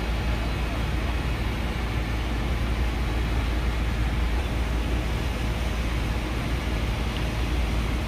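Steady low engine rumble with an even hiss over it, without a break: the running engines of fire trucks and the spray of hoses at a large building fire.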